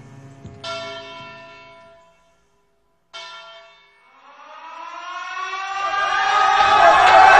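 Two bell strokes ring out and die away, about two and a half seconds apart, with a moment of silence before the second; then a siren winds up, rising in pitch and growing steadily louder.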